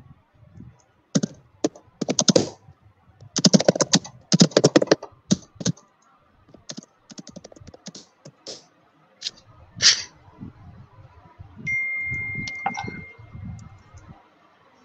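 Computer keyboard typing in bursts of rapid clicks, heard over a video-call line, with a brief steady beep about twelve seconds in.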